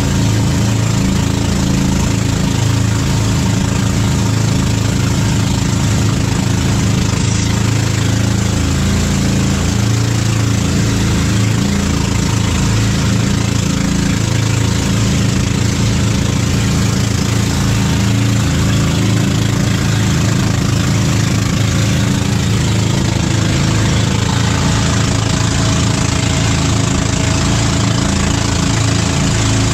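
Small wooden boat's engine running steadily under way, with the rush of water and spray off the hull as it crosses rough sea.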